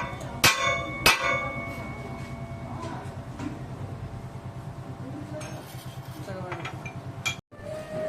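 A hammer striking steel twice, about half a second apart, each blow left ringing, over the steady hum of a running machine.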